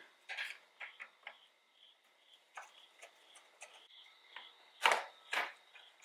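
Small screwdriver clicking against a screw and the plastic side-mirror housing as the screw is backed out: scattered faint ticks, then two louder clicks near the end.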